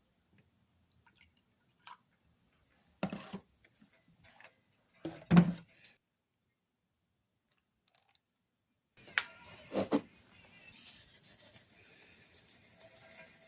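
A few scattered knocks and clatters of objects being handled and set down, the loudest about five seconds in, followed by a faint steady hiss from about ten seconds on.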